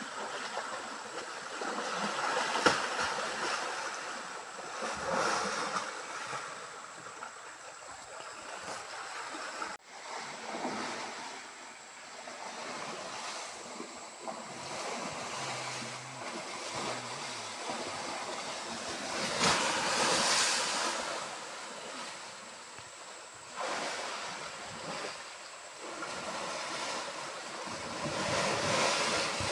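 Muddy stream water rushing, a steady noise that swells and eases, with wind buffeting the microphone.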